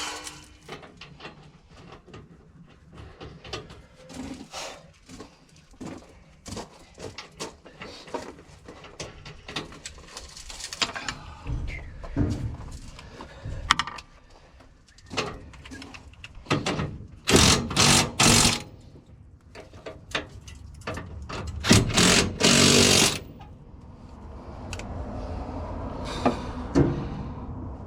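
Irregular knocks and clanks of hand work on metal equipment, with a few louder, rapid bursts of rattling about two-thirds of the way through.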